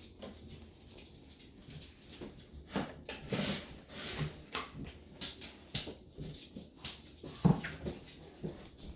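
A kitten scuffling and pouncing while chasing its own tail: irregular soft thumps and scrabbling, with one sharper thump about seven and a half seconds in.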